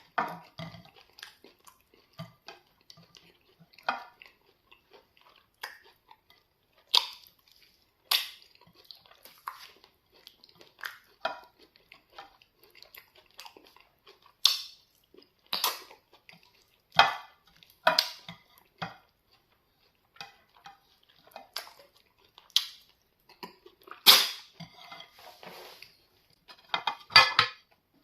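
Close-miked mukbang eating: irregular wet chewing and mouth clicks while eating plantain amala with okra soup, with an occasional clink of dishes or cutlery.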